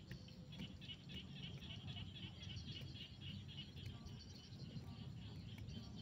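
Frogs calling in a chorus: a rapid, evenly pulsed calling at about three to four pulses a second that fades about four seconds in, over a low steady rumble.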